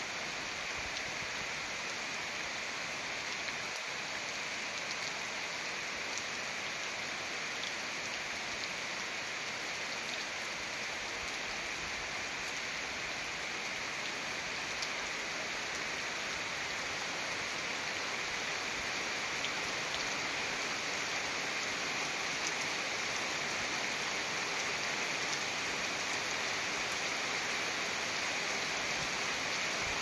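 Steady rain falling on foliage, grass and paving stones: an even hiss with faint scattered drop ticks, growing slightly louder in the second half.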